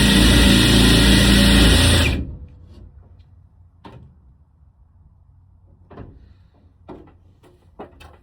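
Power drill running hard, driving a self-drilling metal screw into sheet metal, then cutting off suddenly about two seconds in; a few light clicks and knocks follow as the tool and screw are handled.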